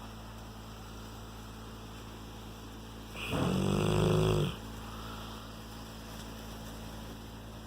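A sleeping Rottweiler snoring: one drawn-out snore about three seconds in, lasting about a second and a half.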